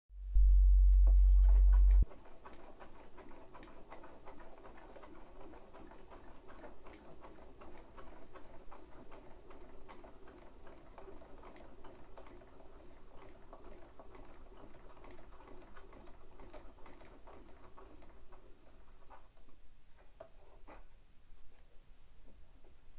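A loud low hum for about the first two seconds, then the spring-wound motor of a SANKYO Goldring portable gramophone running as the turntable spins a 78 rpm record: a steady whirr full of small ticks. It drops away near the end, and a few clicks follow as the soundbox is handled.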